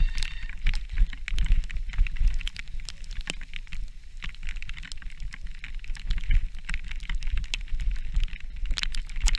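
Mountain bike riding on a wet, muddy dirt track, heard from a camera on the bike or rider: a low rumble of wind and tyres on the ground, with frequent sharp clicks and rattles from the bike and grit.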